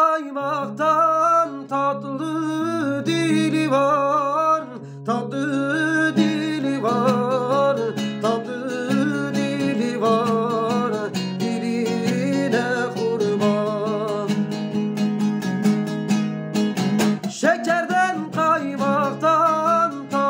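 A man singing a Turkish folk song (türkü) in long, wavering, ornamented phrases over a strummed plucked-string accompaniment, with a short breath between phrases about five seconds in.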